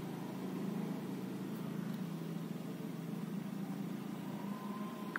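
Steady low humming with hiss from loudspeakers driven by a 4440 IC amplifier board that is powered up but not playing anything. A faint steady higher tone joins near the end.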